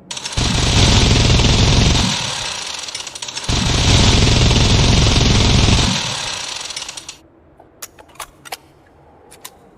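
Minigun firing two long bursts of very rapid fire, about two seconds each, with a short gap between them; the second burst trails away. A few sharp clicks follow near the end.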